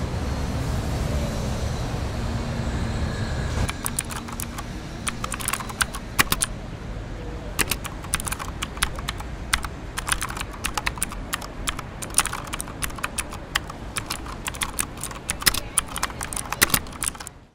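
Low traffic rumble for the first few seconds, then keyboard typing: rapid, irregular key clicks that run on to the end.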